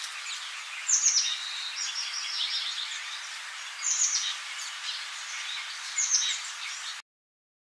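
Birds chirping over a steady background hiss, with short high calls, the loudest about one, four and six seconds in. The sound cuts off abruptly about seven seconds in.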